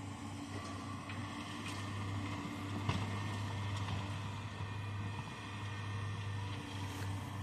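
Excavator's diesel engine running steadily under load, with a single sharp knock about three seconds in.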